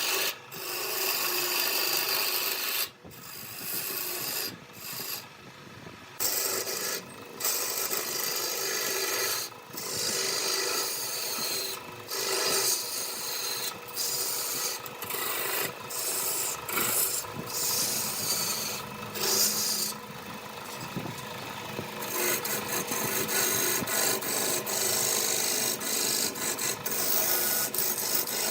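A tool scraping against wood turning on a lathe: a steady, hissing scrape broken by a few short pauses, turning into quick, choppy strokes over the last several seconds.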